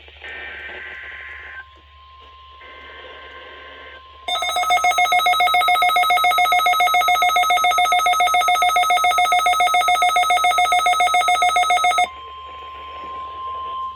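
NOAA Weather Radio weekly test alert signal: brief electronic data tones and a steady high tone. About four seconds in, a loud, rapidly pulsing electronic alert beep starts, lasts about eight seconds and cuts off suddenly, leaving the steady tone.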